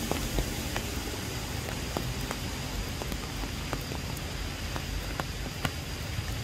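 Steady rain falling through tree foliage: a constant hiss broken by scattered sharp ticks of single drops striking close by.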